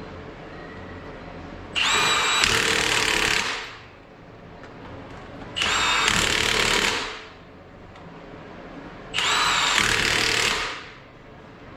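A handheld power tool runs in three bursts of about two seconds each, a few seconds apart. Each burst opens with a rising whine, then holds steady before stopping.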